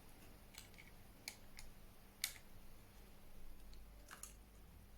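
Faint, scattered small clicks and taps, about five in all, as laptop parts and connectors are handled during reassembly.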